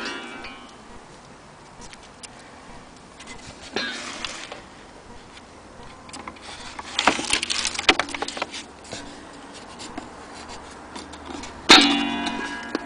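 Antique cuckoo clock's works sounding three sharp metallic strikes, each followed by a ringing decay, about 4, 7 and 12 seconds in, the last loudest, with faint clicks between.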